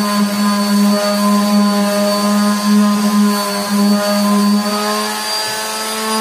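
A motor running steadily with a strong, even hum, its level pulsing slightly about twice a second.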